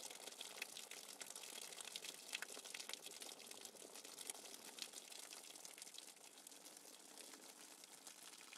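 Very faint patter of light rain, a dense crackling hiss of fine clicks with no low end, thinning out near the end.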